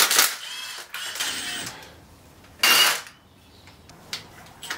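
Hand tools working loose the thermostat housing on an engine: mechanical rattling and light clicks. There is a knock at the start and a louder short burst about two and a half seconds in.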